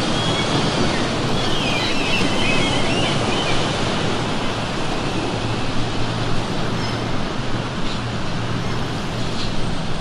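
Ocean surf washing steadily, with gulls crying briefly about a second and a half in.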